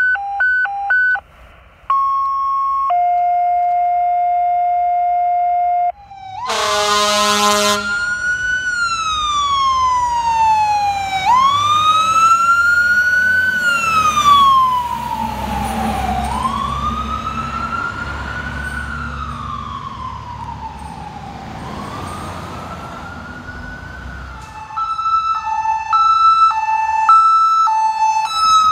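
Fire engine siren wailing, rising and falling slowly in pitch over the low rumble of the truck's engine as it passes; it opens with a short horn blast. The first few seconds are steady electronic beep tones. Near the end a second vehicle's hi-lo siren switches quickly back and forth between two tones.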